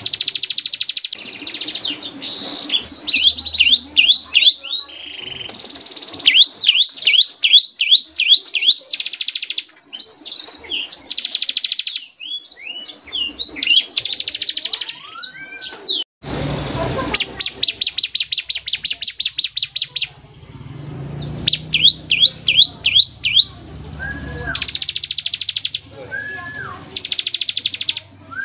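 Bar-winged prinia (ciblek) singing loudly in fast, high rattling trills and runs of sharp repeated chirps. This is the continuous 'ngebren' song with 'tembakan' bursts that bird-keepers use as tutoring song. There is a brief break about 16 seconds in.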